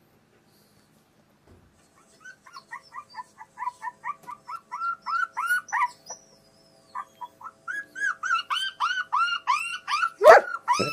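A rapid series of short, high chirps, about three to four a second, pausing briefly and then coming faster and louder. Near the end a German shepherd barks once, loudly.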